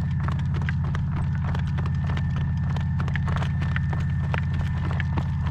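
Horse's hooves clip-clopping at a working trot, over a steady low rumble of wind on the microphone.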